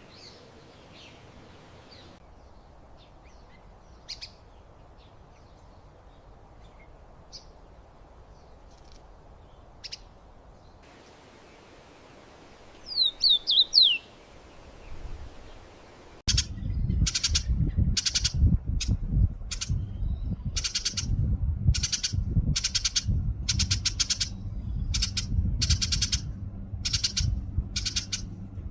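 New Holland honeyeater calls: soft scattered chips, then a loud burst of quick whistled notes falling in pitch about 13 seconds in. From about 16 seconds there is an even run of sharp, harsh calls, roughly one and a half a second, over a low rumble.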